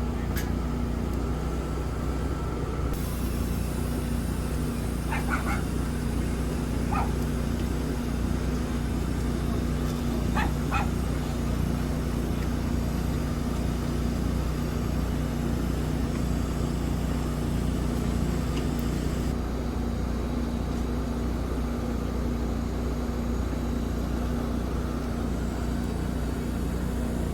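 TIG welding arc hissing for about sixteen seconds, switched on and off sharply by the foot pedal, over a steady low hum. A few short high squeaks come in the first half.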